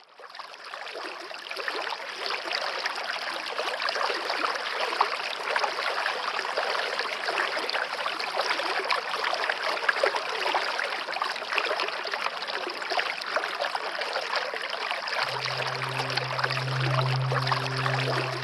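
Waterfall: a steady rush of falling water that fades in at the start. About fifteen seconds in, a low sustained music drone comes in beneath it.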